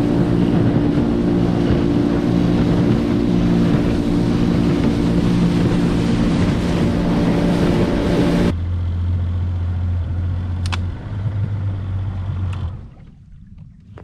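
Small outboard motor on a Gheenoe running at speed, a steady engine drone with water rushing along the hull. About two-thirds through it changes suddenly to a lower, quieter hum, and near the end the motor sound falls away, leaving much quieter water sounds.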